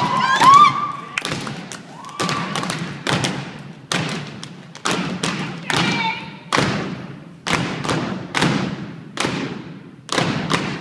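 A step team stomping in unison on a wooden stage, a steady beat of heavy thumps that echo in the hall. A shouted call rises over the first second.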